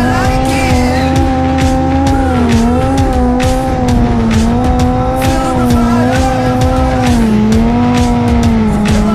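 Sport motorcycle engine held high in the revs, its pitch dipping slightly and recovering every couple of seconds, while the rear tyre squeals as the bike is drifted in circles on asphalt.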